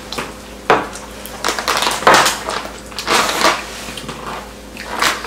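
Close-miked eating sounds of jjimdak (braised soy-sauce chicken): several short bursts of noisy biting and chewing, with a sharp click of chopsticks against a bowl a little under a second in.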